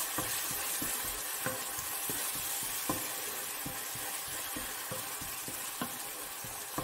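Tomato, garlic and harissa sauce sizzling in oil in a frying pan, a steady hiss, while a wooden spoon stirs it, with irregular light scrapes and taps of the spoon against the pan.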